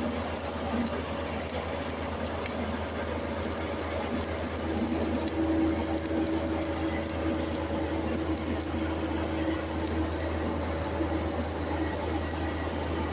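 Welding machine humming steadily, with a crackling hiss over it and a buzzing tone that comes in about a third of the way through and fades a few seconds later.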